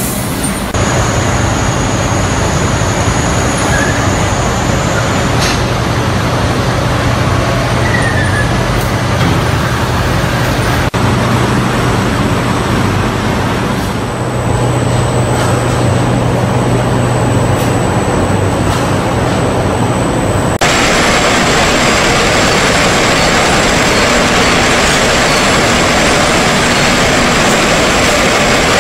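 Industrial bakery production-line machinery running: conveyors and motors giving a steady, loud mechanical noise with a low hum and a thin high whine. The noise changes abruptly a few times, louder and brighter for the last stretch.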